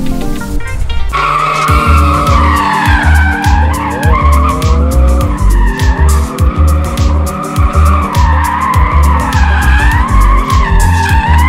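Mazda MX-5 Miata race car's tyres squealing as it spins donuts. The squeal starts about a second in and wavers up and down in pitch. Background music with a steady beat runs underneath.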